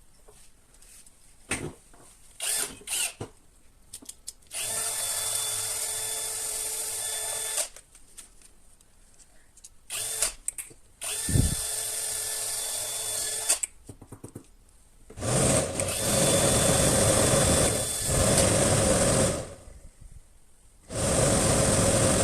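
Audi A6 C5 heater blower motor, freshly rebuilt to cure a squeak, run off the car in four short spells of two to four seconds each, with a few clicks before the first. The last two spells are louder. It runs smoothly.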